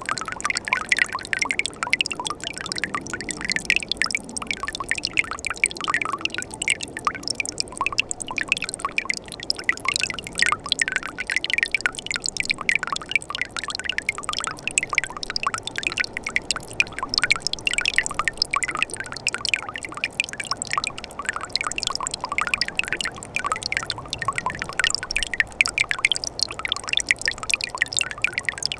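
Winter mountain stream running among ice, a steady babble of water with quick bright splashes and trickles.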